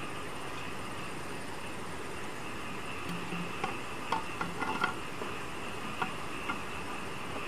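Night insects trilling steadily, with a cluster of light knocks and clicks from about halfway through as bamboo tubes and stones are handled.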